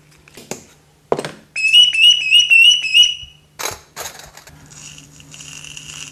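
A small metal hand-made bird call (appeau) being sounded to try it out. It gives a quick run of about six bird-like chirps, then a softer, wavering call near the end. Sharp clicks and knocks from handling the tool and call come before and between them.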